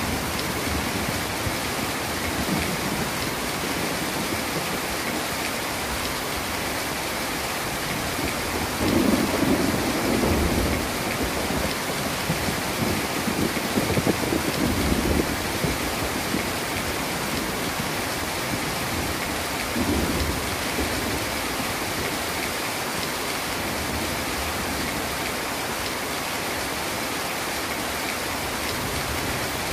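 Heavy rain falling steadily. A low rumble of thunder rolls in about nine seconds in, another around fourteen seconds, and a fainter one around twenty seconds.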